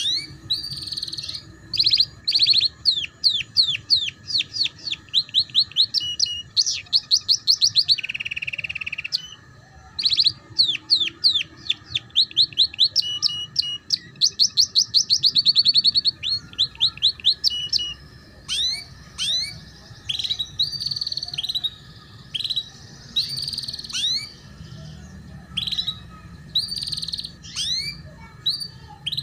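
Domestic canary singing in the rolling ngeriwik style: phrases of rapid, repeated high falling notes that speed up into fast trills, with a short lower buzzy note about eight seconds in. The phrases thin out into separate chirps in the second half.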